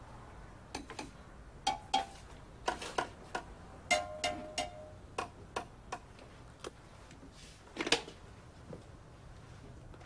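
Metal aerosol spray cans clinking and knocking together as they are picked up and moved about, in irregular clicks, some ringing briefly, with a short rattle about eight seconds in.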